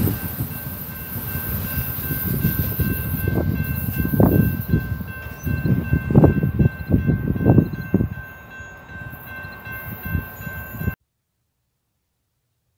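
Tail end of a freight train rolling away on the rails: a low wheel rumble with several louder thumps, under steady high-pitched ringing, fading as the train recedes. The sound cuts off abruptly to silence about eleven seconds in.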